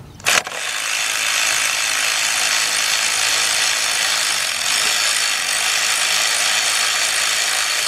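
Power ratchet with a 15 mm socket on a 3/8 drive running steadily for about seven seconds with a high, even whirring hiss, backing out an alternator mounting bolt. A short knock as it starts, and it cuts off abruptly.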